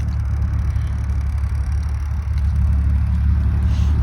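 Infiniti G35's 3.5-litre V6 idling steadily with a low, even exhaust drone, running on test pipes in place of catalytic converters.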